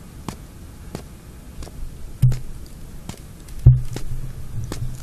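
Slow footsteps across a room floor, a soft click about every half second. A low hum comes in about two seconds in.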